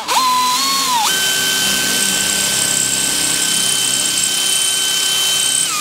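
Cordless drill drilling out a spot weld in a car's sheet-steel wing mount. The motor whine climbs in pitch about a second in, runs steady, then drops a little near the end.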